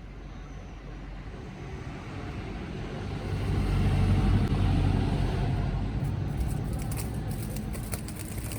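A road vehicle passing: a low rumble swells to a peak about four seconds in and then fades. Faint crackling clicks come near the end.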